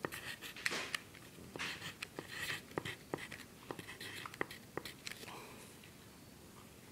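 A pen writing on graph paper: short, irregular scratchy strokes as figures are written, dying away about five seconds in.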